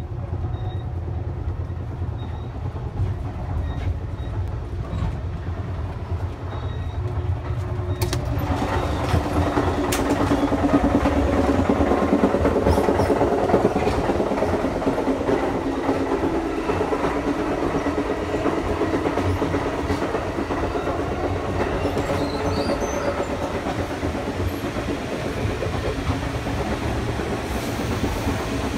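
Amtrak Viewliner sleeping car on the move, heard from inside: the running train's steady low rumble. About eight seconds in there is a click, and the wheel and track noise grows louder and fuller through the gangway between cars, easing a little after about sixteen seconds.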